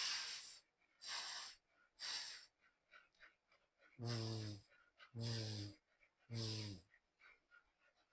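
A person demonstrating the English dental fricatives. The voiceless "th" /θ/ is hissed three times, about a second apart. Then the voiced "th" /ð/ is buzzed three times, the same hiss with the voice sounding under it.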